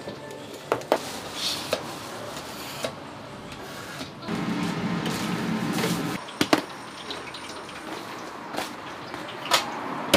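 Kitchen utensils and containers handled at a food stall counter: scattered clicks and knocks, with a louder rustling scrape lasting under two seconds near the middle.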